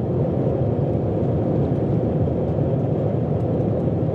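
Steady low roar of an Airbus A330-300 in flight, heard inside the passenger cabin: engine and airflow noise.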